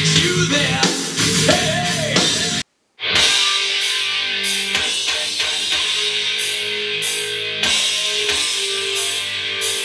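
Rock music with singing, guitar and drums played through an LG RK8 portable speaker. A little under three seconds in it cuts off for a split second, and the rock music resumes through a JBL Charge 4 Bluetooth speaker.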